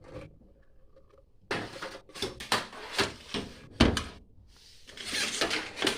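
Handling noises: irregular scraping and rubbing scuffs with a sharp knock just under four seconds in, as a car mirror and body parts are handled.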